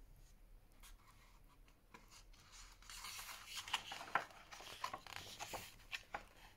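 A page of a large hardcover picture book being turned by hand: faint paper rustling and sliding with a few sharp clicks, starting about two seconds in and growing louder about three seconds in.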